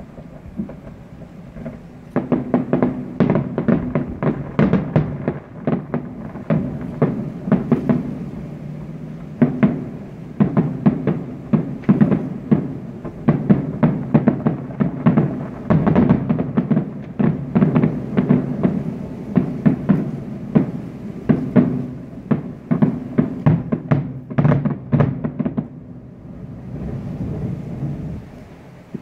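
Distant fireworks finale: a rapid, dense run of booms and crackling bursts with a low rumble beneath, starting about two seconds in and stopping a few seconds before the end.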